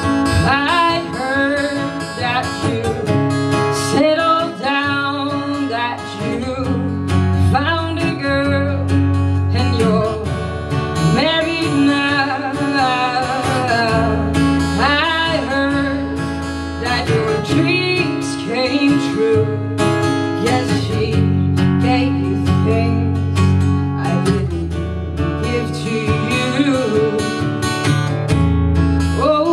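A woman singing live to her own acoustic guitar.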